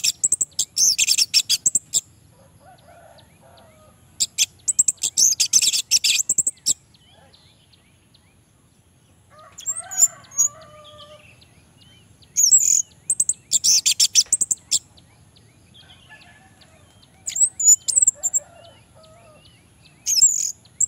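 Orange-headed thrush singing: about six loud phrases of fast, varied high notes, each one to two seconds long, separated by pauses of a few seconds.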